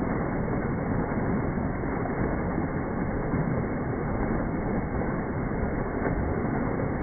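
Steady rushing of a small creek cascade spilling over boulders and splashing into the pool below.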